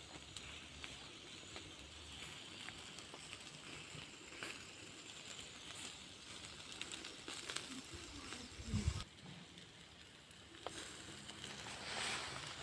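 Faint hiss and scattered small crackles of meat sizzling over charcoal in a grill basket. A short low bump on the microphone a little before 9 seconds.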